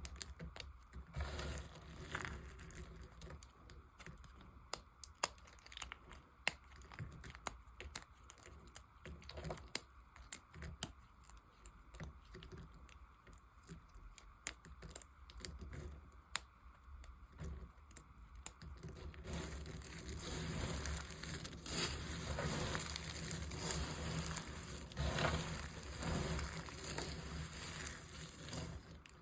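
A knife cutting and carving dry soap: scattered crisp cracks and crumbles, turning into denser, continuous scraping and crumbling about two-thirds of the way through.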